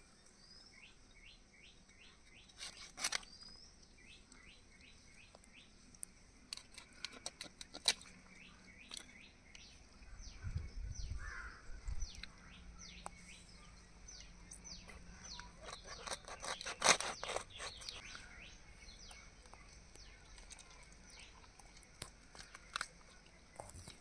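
A scalded duck being cut on a fixed curved boti blade: scattered sharp clicks and scrapes of the blade through skin and joints, loudest in a quick cluster about two-thirds in. Small birds chirp in short repeated series behind it.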